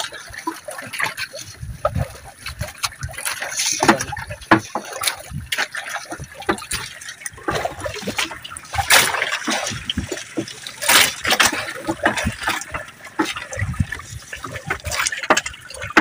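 Wet nylon fishing net being paid out over the side of a wooden outrigger boat, with irregular splashing and trickling water and small knocks of the mesh and floats against the hull.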